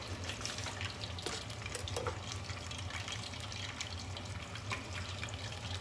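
Chicken strips deep-frying in hot oil: a steady sizzle with many scattered crackles, over a low steady hum.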